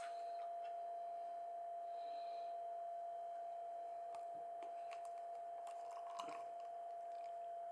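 Faint clicks and taps of an aluminium beer can and a thin plastic cup being handled, then beer starting to pour from the can into the plastic cup about six seconds in, over a steady high-pitched hum.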